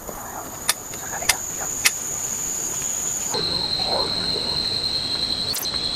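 Forest insects droning steadily at a high pitch; the drone drops to a lower pitch abruptly a little past halfway. Three sharp clicks come in the first two seconds.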